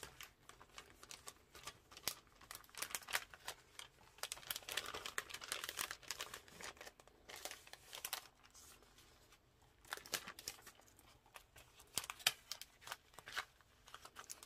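Clear cellophane bag crinkling in the hands as it is opened and printed papers and a small art card are slid out, in irregular bursts of crackling with paper rustling.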